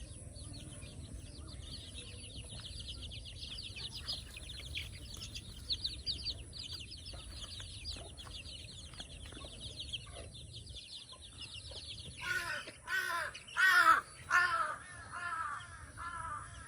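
A crow cawing, a run of about six loud, harsh caws in the last few seconds. Before them a fast, high chatter runs on steadily.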